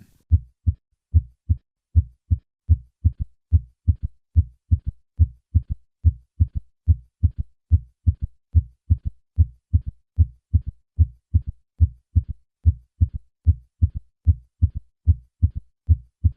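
Heart sounds with a third heart sound: low, dull thumps, about three a second, in a steady gallop rhythm, with the extra S3 thud falling in early diastole just after the second heart sound. In patients over 40 this gallop usually goes with a decreased ejection fraction, and it also occurs in volume overload such as mitral regurgitation.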